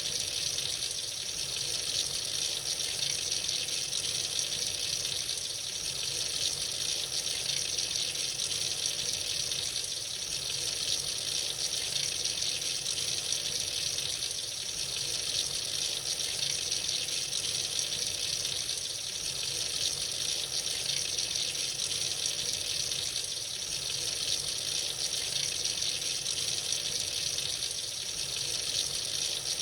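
Tap running freely into a sink, a steady stream of water splashing without a break.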